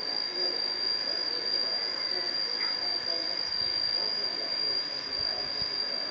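A steady, high-pitched insect trill over a faint background murmur.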